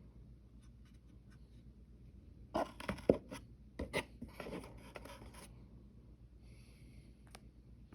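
Handling noise from unboxing: scraping and rustling of the packaging with several sharp clicks and knocks, bunched together in the middle, the loudest a single sharp click, then a fainter rustle and a click near the end.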